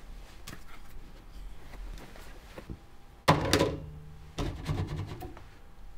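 A sudden loud thunk about three seconds in that rings briefly, followed by a softer knock about a second later, over faint handling noise.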